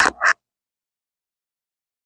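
Two short clatters in quick succession, from kitchenware being handled.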